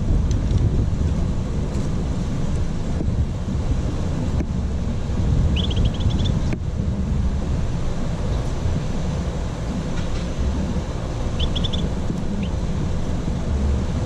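Wind on the microphone, a steady low rumble. Twice, about five and a half and eleven seconds in, a bird gives a short quick run of high chirps.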